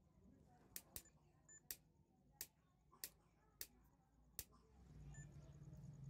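Pliers' cutting jaws snipping thin wires, seven sharp clicks over about four seconds, followed by a low rumble near the end.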